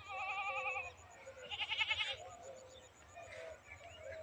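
Goat bleating twice: a wavering call at the start, then a shorter, more pulsing one about a second and a half in, with faint bird chirps behind.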